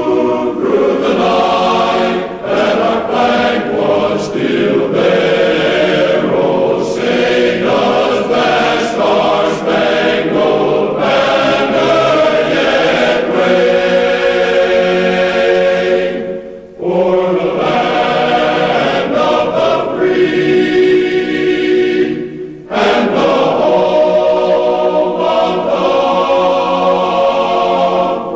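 A choir singing in long, held chords, with two brief pauses about 17 and 23 seconds in.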